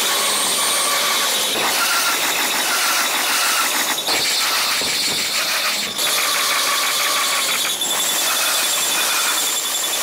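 Japanese railway level-crossing alarm ringing its repeating electronic clang, about one and a half strikes a second, over a steady rush of noise.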